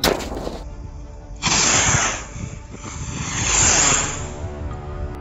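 Diwali firework rockets whooshing off their bottle launchers: three loud hissing rushes, one sharp at the start, one about a second and a half in, and one swelling near four seconds. Background music plays throughout.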